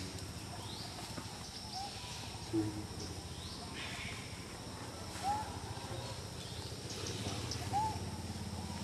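Outdoor ambience with a few short animal calls: three brief arched chirps a few seconds apart, and fainter high calls early on, over a steady low background hum.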